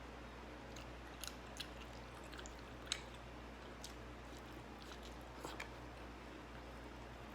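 A person chewing food close to the microphone, with a few short sharp crunching clicks; the loudest comes about three seconds in. A steady low hum sits underneath.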